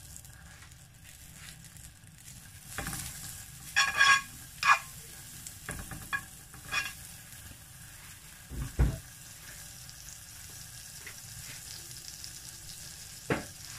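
Butter melting and sizzling in a hot nonstick frying pan at medium heat, a steady low hiss. A metal spoon scrapes and knocks against the pan now and then as it spreads the butter, most of all a few seconds in, with two duller knocks past the middle.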